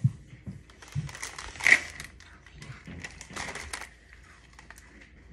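Crunchy fudge-striped cookies being bitten and chewed, in two spells of crunching: one about a second in and another about three seconds in.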